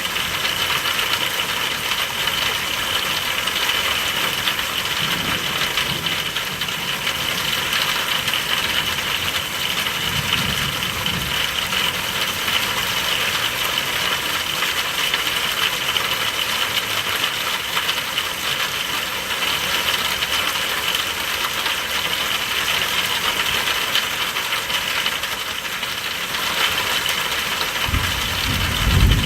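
Steady rain falling, with a constant high-pitched drone in the background. Low rumbles of distant thunder come about five and ten seconds in, and a louder one near the end.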